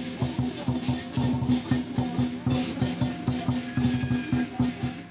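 Chinese lion dance percussion: a large drum beating a fast, steady rhythm with crashing cymbals over it, accompanying the lion's act on the poles.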